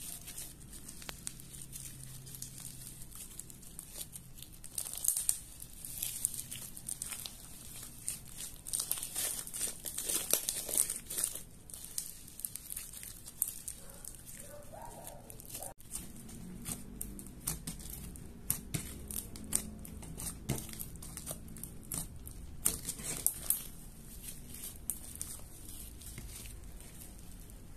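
Blue slime being stretched, pulled and folded by hand, giving a long run of small sticky crackles and snaps, louder in a few clusters.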